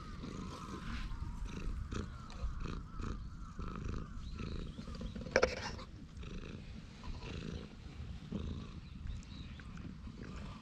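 Domestic cat purring while being stroked, a rough low rumble that runs on throughout. A brief sharp sound stands out about halfway through.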